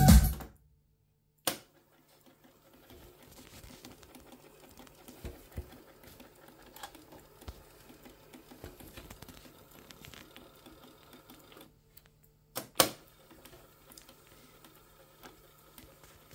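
Music playing from a Hitachi D-E95 cassette deck cuts off about half a second in as STOP is pressed, followed by a sharp mechanism click. The deck's two-motor transport then fast-winds the tape with a faint, busy whirring and fine ticking. It stops briefly near the end, gives two clicks, and starts winding again.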